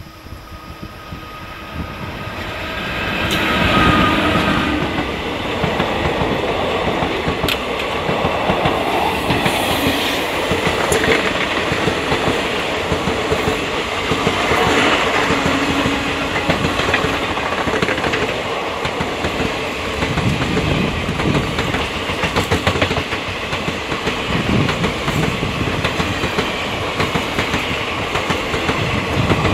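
Express passenger train hauled by an Indian Railways WAP-4 electric locomotive passing at speed. The noise swells over the first few seconds as the locomotive nears and goes by, then the coaches rush past with steady wheel-and-rail rumble and clickety-clack over the rail joints.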